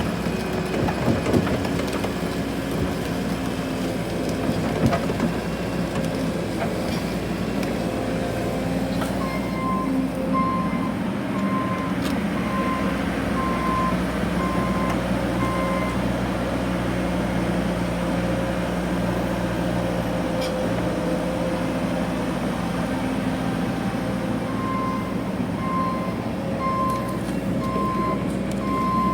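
Excavator's diesel engine running steadily, with a few knocks in the first seconds. A travel alarm beeps repeatedly, a bit over once a second, in two stretches: about a third of the way in and again near the end.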